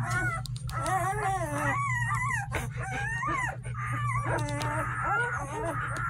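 A litter of week-old German Shepherd puppies squeaking and whimpering as they nurse, many short rising and falling cries overlapping one another, over a steady low hum.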